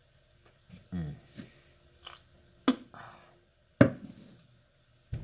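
Wet mouth sounds of a man chewing a wad of loose-leaf chewing tobacco: a short hum about a second in, then two sharp, loud smacks in the middle and another just before the end.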